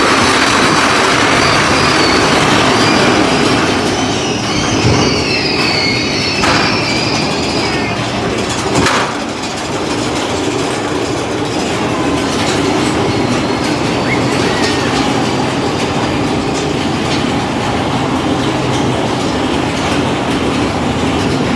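Big Thunder Mountain Railroad's mine-train roller coaster running on its track, a steady loud rattle and rumble of the cars and wheels. A high, wavering wheel squeal comes a few seconds in, and a sharp click about nine seconds in.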